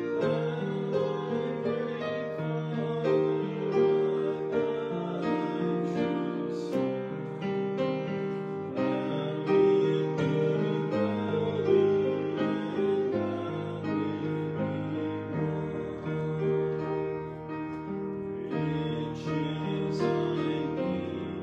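A slow hymn with piano accompaniment, with a man singing along at the microphone.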